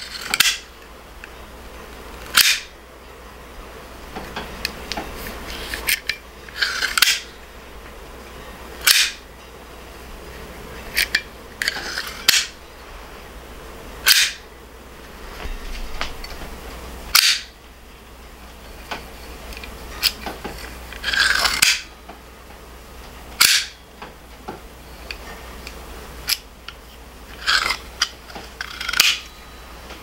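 Smith & Wesson M&P out-the-front (OTF) spring-assisted knives, freshly oiled, firing their blades out and snapping them back. About a dozen sharp metallic clacks come one to three seconds apart, a few of them doubled.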